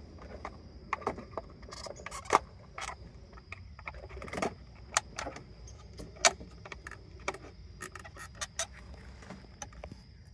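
Irregular clicks, taps and short scrapes of a screwdriver working against the plastic housing of a 2010 Honda Odyssey fuel pump module, prying at its retaining clips. Two sharper clicks stand out, a couple of seconds in and about six seconds in.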